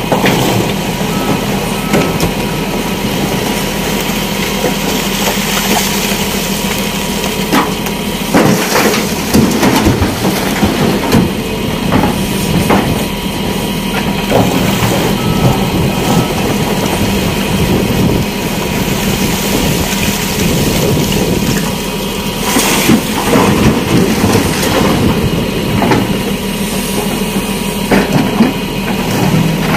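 JCB backhoe loader's diesel engine running steadily while it loads broken stone into a tipper truck. Two spells of loud clattering, about eight seconds in and again after twenty, as stone pours from the bucket into the tipper body.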